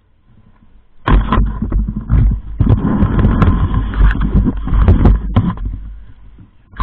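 Handling noise from an action camera being moved by hand: loud rubbing, knocking and clicks against the microphone with low rumble. It starts suddenly about a second in and fades near the end.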